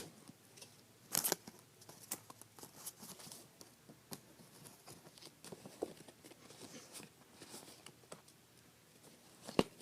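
Trading cards and pack wrappers being handled: scattered light clicks and rustles, with a sharper snap about a second in and another near the end.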